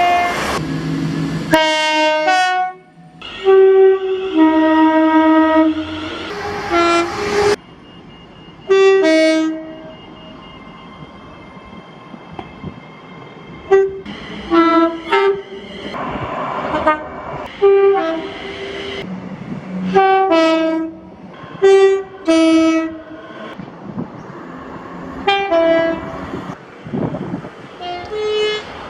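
Train horns sounding a string of short toots and longer held blasts, several notes at once, with a steady rumbling haze of train noise between blasts. The sound changes abruptly a few times as one horn recording cuts to the next.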